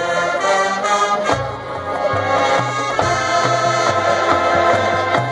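High school marching band playing long held chords, with the low bass notes moving in steps underneath.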